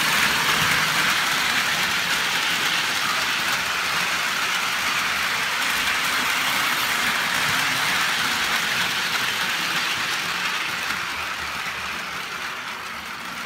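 Lionel O-gauge Pacific steam locomotive and passenger cars running on three-rail track: a steady noise of wheels and motor, loudest as the train passes close near the start and fading in the last few seconds as it moves away around the loop.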